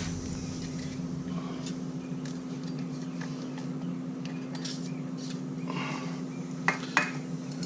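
Faint metallic clinks and taps of hand tools over a steady low hum, with two sharper clicks near the end.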